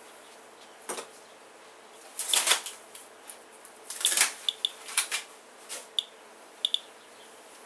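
Geiger counter clicking at irregular intervals, about one a second, each click a short high chirp marking one detected count of radiation from a rainwater sample. Two louder noises, each about half a second long, come about two and four seconds in.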